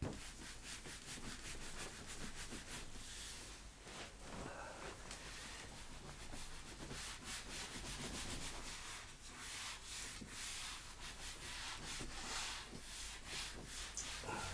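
Felt whiteboard eraser being scrubbed back and forth across a whiteboard in repeated wiping strokes as the writing is cleared off.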